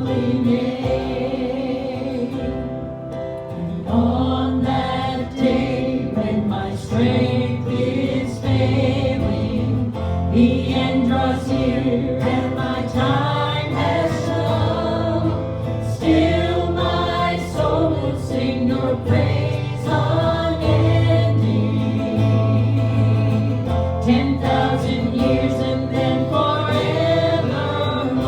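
Worship music: a group of voices singing a gospel song with instrumental accompaniment.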